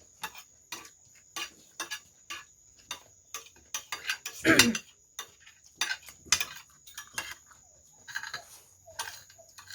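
Cutlery clinking and scraping on plates in short, irregular clicks during a meal. About halfway through comes one louder, brief vocal sound that falls in pitch.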